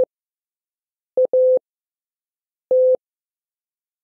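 Morse code sent as a single steady beep tone, spelling the letters T and A: the end of a dash at the start, a dot and a dash about a second in, then another dash near three seconds, with long silent gaps between letters.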